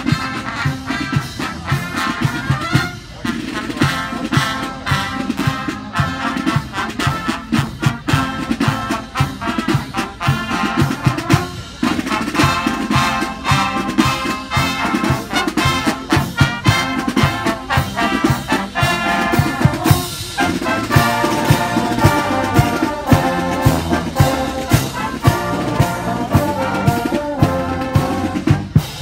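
Marching band playing live: brass horns, sousaphones among them, over snare drums beating a steady march rhythm.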